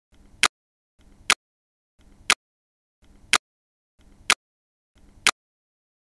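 Camera shutter sound effect clicking six times, about once a second, each click a sharp snap preceded by a faint short lead-in.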